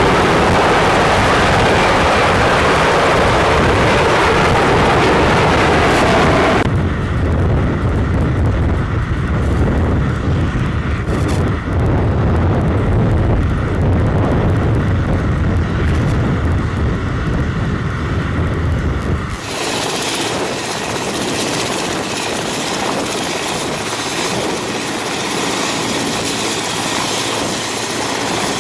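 Military helicopters in three cut-together shots. First a Navy Seahawk hovering close, with loud rotor and engine noise. Then a strong low rumble from a helicopter flying over a ship's deck. From about 19 seconds in, a Mil Mi-8-family helicopter running on the ground, its rotors turning, with a thin high turbine whine.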